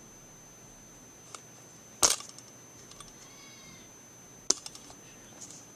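A few sharp clicks and taps: a small one, then a loud one about two seconds in, and another about four and a half seconds in followed by a few light ticks. A faint steady high whine runs underneath.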